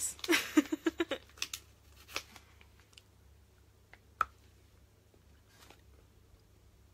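A short burst of voice at the start, then a few faint clicks and a single sharp snap about four seconds in as a piece of chilli and lime milk chocolate is bitten off.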